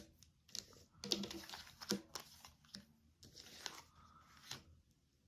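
Tarot cards being handled and laid on a table: a string of faint card slaps and rustles, about half a dozen in all.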